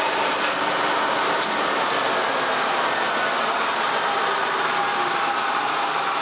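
American Pacemaker lathe running under power just after being rewired, its chuck and headstock spindle turning with a steady mechanical whir and a faint whine that falls slowly in pitch. This is the test run to check that the motor is wired to turn the spindle in the right direction.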